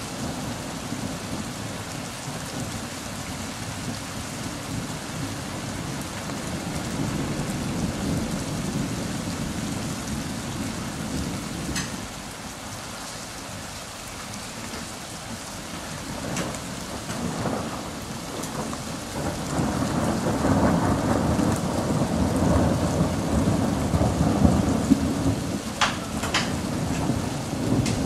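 Steady rain falling, with low thunder rumbling that swells and grows louder in the second half. A few sharp ticks stand out, one about midway and a couple near the end.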